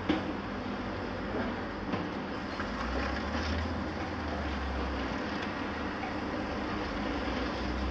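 Heavy demolition machinery working: the steady din of diesel excavators and a tracked mobile crusher, with a sharp knock at the start and the low engine rumble swelling about three seconds in and again near the end.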